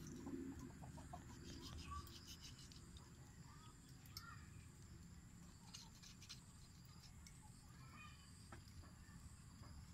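Near silence: a few faint chicken clucks now and then in the background, with light scraping as a knife works along a water snake's skin.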